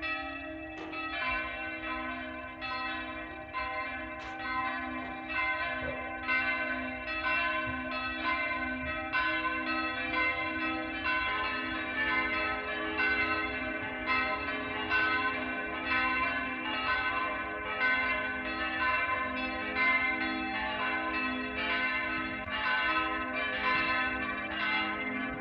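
Church bells ringing in a steady peal, strike following strike about once a second, each ringing on into the next.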